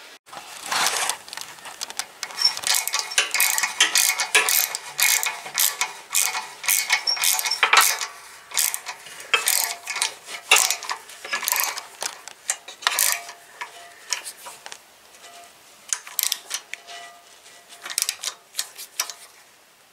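Socket ratchet clicking in quick, uneven runs as exhaust bolts are wound in on a riding mower's engine.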